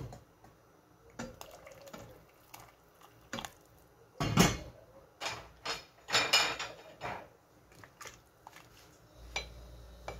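Kitchenware being handled: scattered knocks and clinks of pots, utensils and containers, with one sharp knock about four seconds in and a quick run of clinks around six seconds.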